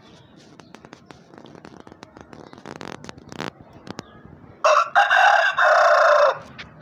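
Rooster crowing once, loud, for a little under two seconds near the end, with a short break partway through. Faint clicks come before it.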